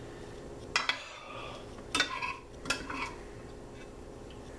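A metal spoon clinking against ceramic dishes three times while gravy is spooned over the food, each clink ringing briefly.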